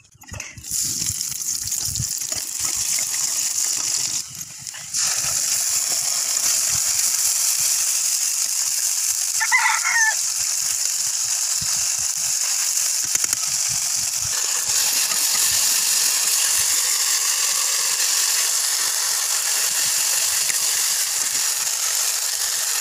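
Onions frying in hot oil in a metal kadai: a steady sizzle that grows louder about five seconds in, with the spatula scraping and knocking against the pan. A brief animal call about ten seconds in.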